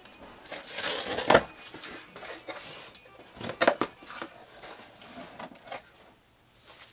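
A box cutter slitting the tape along the top seam of a cardboard box, a rasping cut that ends sharply about a second in, followed by the cardboard flaps being pulled open with crinkling and a few sharp clicks.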